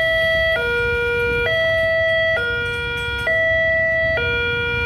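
Railway level-crossing warning alarm: an electronic two-tone signal that alternates between a higher and a lower tone about once a second, warning that a train is approaching and the crossing barrier is closing. A low rumble runs underneath.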